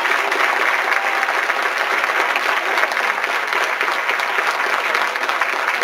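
A theatre audience applauding steadily, with the cast on stage clapping along.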